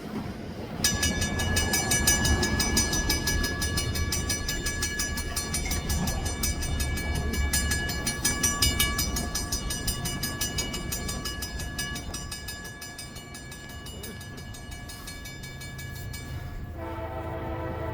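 CSX freight train led by GE diesel locomotives, with a low rumble throughout. From about a second in, a high ringing tone with a rapid even beat sounds; it stops near the end, when a lower horn chord sounds.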